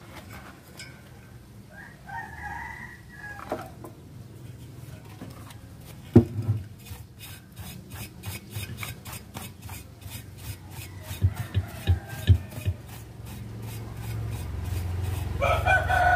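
Stiff paintbrush scrubbing the steel basket and magnet of a 12-inch subwoofer: from about six seconds in, a rhythmic rasp of several strokes a second, with a knock and a few thumps. A rooster crows in the background twice, a couple of seconds in and again near the end.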